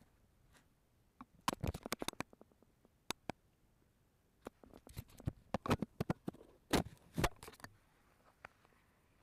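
Handling noise on a drone-mounted action camera as it is adjusted by hand: a series of sharp clicks and knocks, one cluster about a second in and another from about four and a half seconds, the loudest two near seven seconds. The drone's motors are not running.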